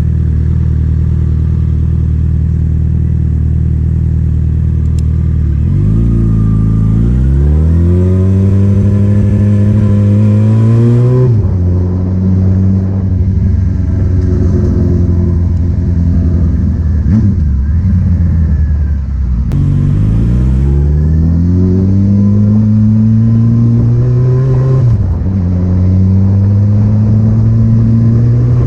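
Vehicle engine with a loud exhaust, running steadily and then accelerating hard up through the gears twice, the pitch climbing and dropping back at each gear change, with steadier running in between.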